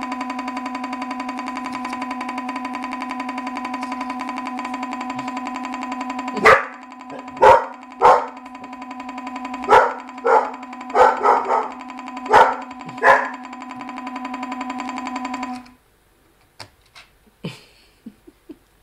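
A steady electronic tone with evenly spaced overtones starts and stops abruptly, lasting about fifteen seconds. From about six seconds in, about ten short, loud barks, like a dog's, cut across it.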